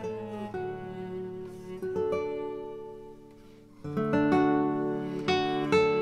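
Background music of plucked string notes and chords, the sound fading to a brief lull about three and a half seconds in before a new chord comes in.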